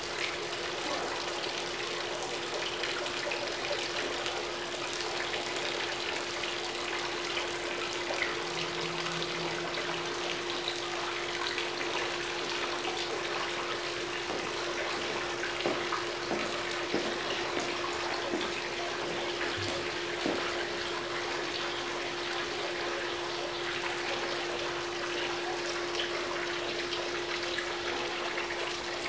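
Steady splashing and trickling of water from a pool fountain spilling into the pool, with a steady hum beneath it.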